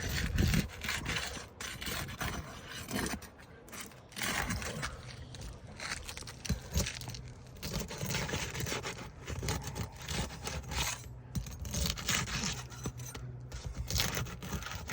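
Roof snake sliding and scraping under roof shingles to work a shingle nail loose, in a run of irregular scrapes and sharp knocks.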